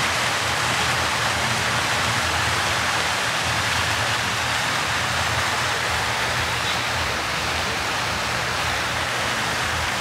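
Multi-jet fountain splashing steadily into its basin: an even rush of falling water.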